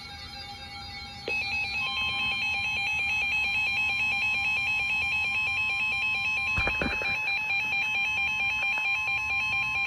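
Emergency Alert System alert tone: an electronic alarm that switches on loudly about a second in and holds steady, made of steady tones with a fast warble above them, with a brief click partway through.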